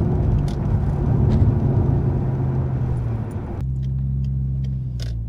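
Turbocharged Ford Barra straight-six with a 4-inch ANTZ exhaust, heard from inside the cabin cruising in third gear at 100 km/h with the VAREX muffler valve open: a loud, steady engine and exhaust note. About three and a half seconds in it drops suddenly to a much quieter, smoother low hum as the VAREX valve is closed.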